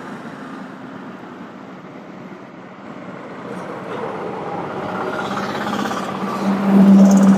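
Vehicle and road traffic noise, a steady rush that grows louder over the last few seconds. Near the end a steady low tone comes in and is the loudest sound.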